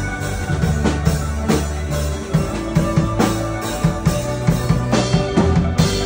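A band playing instrumental music: keyboard, electric guitar and drum kit, with sustained low notes under a steady drum beat.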